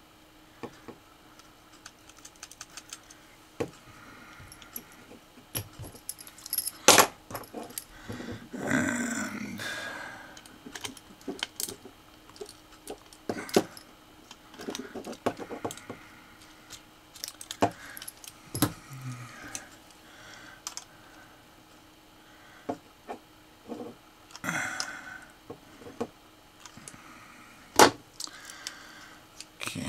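Hands handling a small metal robot chassis and its cables: irregular light clicks, taps and rattles with a few brief rustles, and two sharper knocks, about seven seconds in and near the end.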